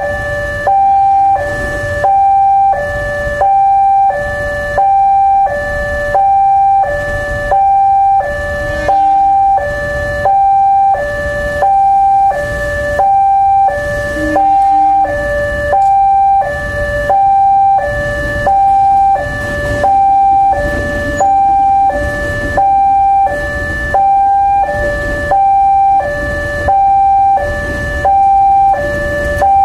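Railway level-crossing warning siren, the crossing's double siren, sounding a steady two-tone wail. A higher and a lower tone alternate evenly, each held about two-thirds of a second.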